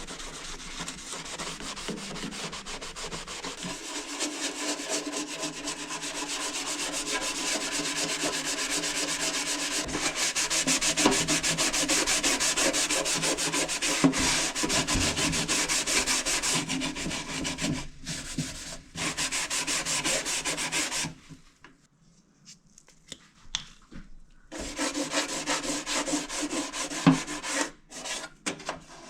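Sponge scrubbing toothpaste over the greasy front door of a toaster oven, a steady rapid rubbing, with a pause of about three seconds about three quarters of the way through before the scrubbing starts again.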